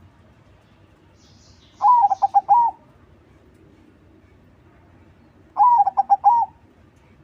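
Crossbred ("crossing") zebra dove cooing: two song phrases about four seconds apart. Each is an opening note followed by a quick run of four or five short coos.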